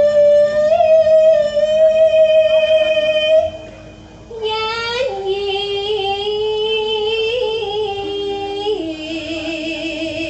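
A young female sinden, a Javanese gamelan singer, singing into a microphone: long held notes in two phrases with a short breath between them about three and a half seconds in, the last note wavering with vibrato.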